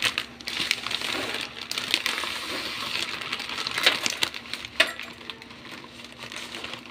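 Water at a rolling boil bubbling in a metal pot as dry spaghetti is poured in from its plastic packet, with sharp clicks from the sticks and crinkling from the packet.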